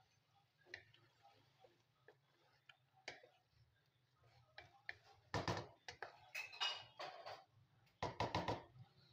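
Spatula scraping and tapping against a non-stick kadhai while stirring a thick spinach curry with potatoes: scattered light ticks at first, then several longer scraping strokes in the second half.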